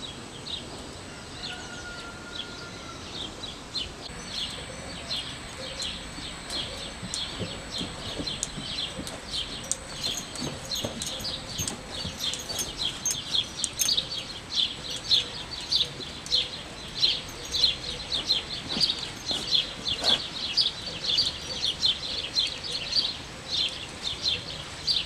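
Swallows twittering: a rapid stream of short high chirps that grows denser and louder from about halfway, with a few soft knocks underneath.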